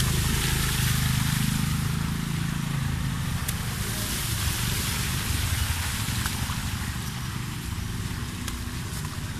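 Motorcycle engine running while tyres ride through shallow floodwater on a paved road, with a steady hiss of water spray. It gradually gets quieter toward the end.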